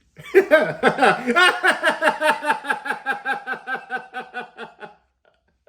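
A person laughing, a long run of short pulsed 'ha-ha' beats at about four a second, fading out over about five seconds.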